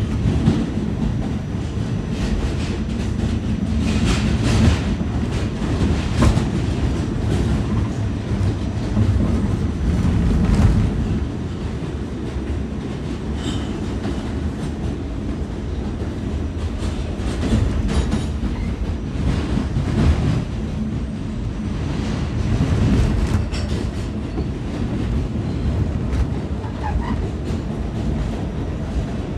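Inside an R46 New York City subway car running along the line: a steady low rumble from the moving train, with irregular clicks and clacks of the wheels on the track. It eases a little after about eleven seconds.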